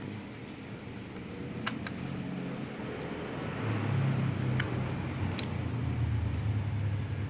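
Low engine rumble that swells about three and a half seconds in and holds, with a few sharp clicks over it.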